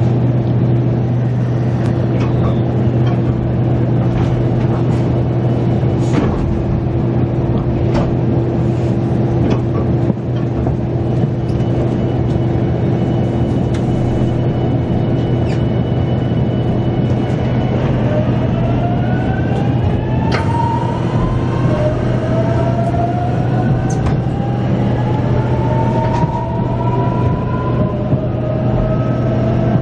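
JR Shikoku 8000 series electric train heard from inside the car as it pulls away: a steady low hum with a few sharp clicks, then from about two-thirds of the way through, the VVVF inverter whine of the traction motors rising in pitch in several tones as the train accelerates.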